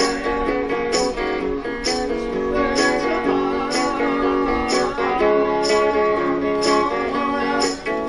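Acoustic guitar strummed in a steady rhythm over sustained chords, with a sharp strum accent about once a second.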